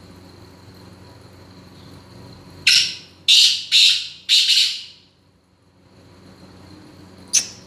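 Male black francolin (kala teetar) calling: four loud, harsh notes in quick succession, the last one a little longer. A single short, sharp sound follows near the end.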